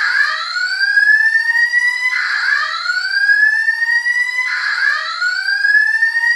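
Simplex 4100U voice evacuation fire alarm sounding its evacuation tone over the speakers. The tone is a loud, repeating rising sweep (a whoop), three sweeps each about two seconds long, each climbing in pitch and then jumping back down to start again.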